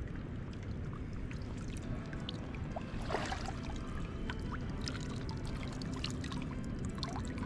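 Water pouring and dripping off a large carp and a wet sling as the fish is lifted out of shallow water, with scattered drips and one brief splash about three seconds in.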